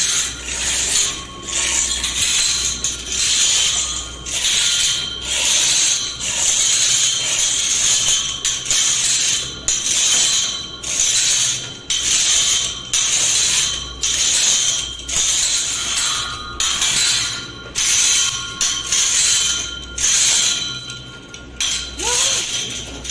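Manual chain hoist (chain block) being worked by hand: the chain rattles and the ratchet clicks in repeated pulls, about one stroke every second and a half.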